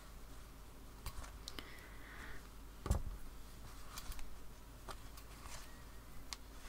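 Small clicks, ticks and thread rustles of a needle and yarn being worked through the warp threads of a mending loom, with one soft thump about three seconds in.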